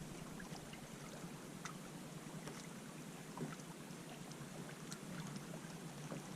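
Faint, steady water lapping against a kayak hull, with a few light ticks scattered through it.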